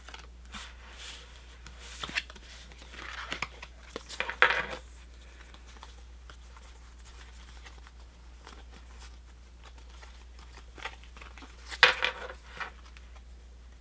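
Crinkling and rustling of a foil booster pack wrapper and trading cards being handled, in two bursts: one about two to five seconds in, another near twelve seconds, with a few light clicks between.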